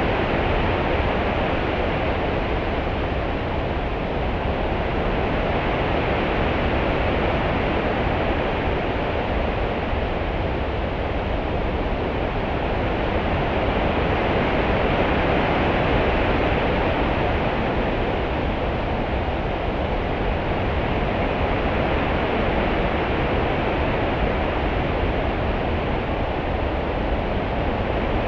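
Open-sea water ambience: a steady wash of swell and small ripples that slowly rises and falls every several seconds, with a low rumble underneath.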